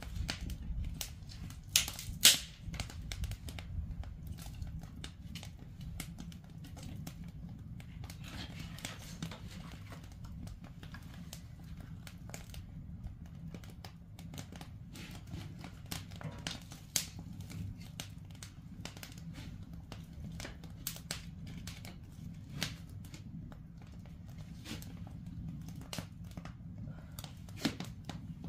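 Wood fire crackling in a brick ondol firebox as dry dead branches burn and are pushed in, with scattered sharp snaps and pops; a loud snap comes about two seconds in.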